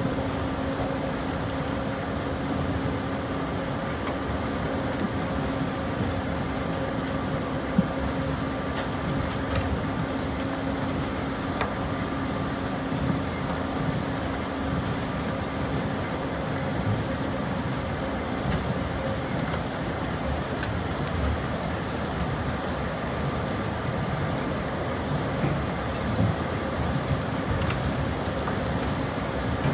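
Bucket wheel excavator running, its wheel turning and buckets cutting into the bank: a steady mechanical noise with a constant hum, and occasional sharp knocks.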